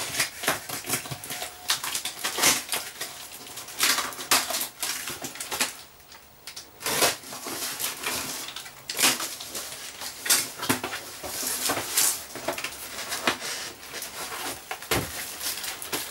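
Utility knife slicing through packing tape and cardboard on a shipping carton, then the carton's cardboard flaps being pulled open, in a run of irregular scrapes, rips and crackles.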